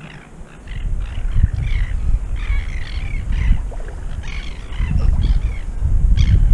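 Wind buffeting the microphone, with a low rumble that grows loudest near the end, over birds calling over and over.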